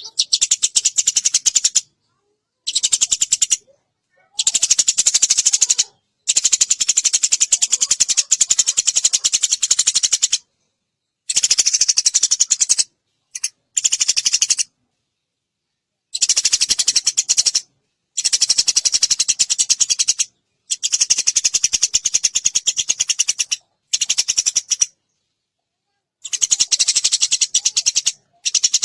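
Eurasian tree sparrow (burung gereja) chirping fast and tight in a clear recording, in rapid runs of notes lasting one to four seconds, broken by short clean silent gaps.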